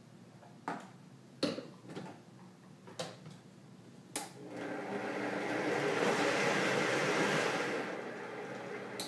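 Vitamix blender starting up about halfway through, running up to speed to blend a tahini dressing, holding there and then easing down near the end. Before it, a few sharp knocks and clicks of the jar and lid being handled.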